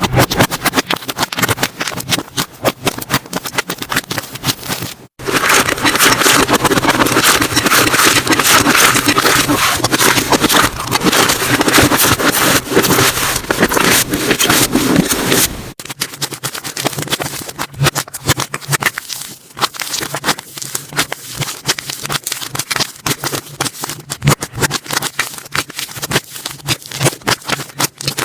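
Slime being squished, stretched and poked by hand, giving a dense run of crackling, popping clicks. From about five seconds in to about sixteen seconds in it turns louder and almost continuous, then goes back to sparser clicks and squelches.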